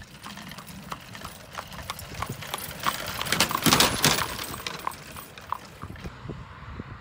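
A horse's hooves clip-clopping on asphalt as a horse-drawn buggy trots past, with the noise of the buggy's wheels on the road, loudest about halfway through.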